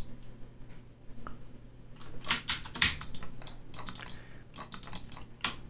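Irregular clicks and taps of a computer keyboard and mouse, mostly in the second half, over a faint steady low hum.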